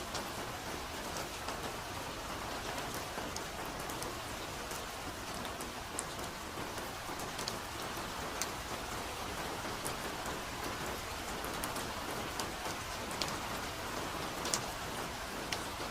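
Steady soft rain falling in a forest, an even patter with scattered sharper drops ticking now and then.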